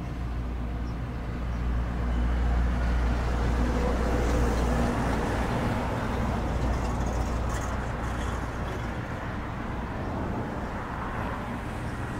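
Steady low rumbling background noise, a little louder for a few seconds in the middle.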